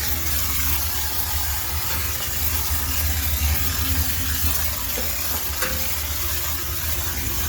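High-pressure steam cleaner jetting steam, a steady hiss over a low machine hum.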